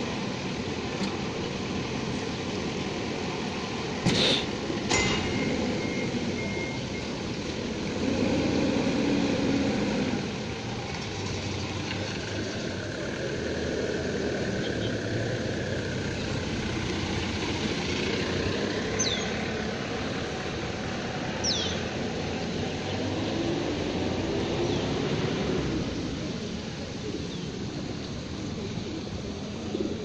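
Steady low rumbling outdoor background noise with two sharp clicks about four and five seconds in. A couple of faint, short high chirps come about two-thirds of the way through.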